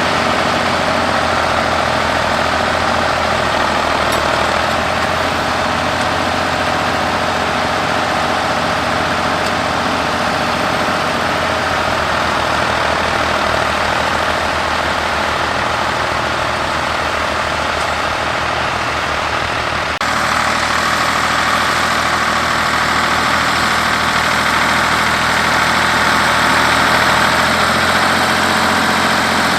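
Ford 3000 tractor's three-cylinder engine running steadily. Its sound changes abruptly about two-thirds of the way through and is slightly louder afterwards.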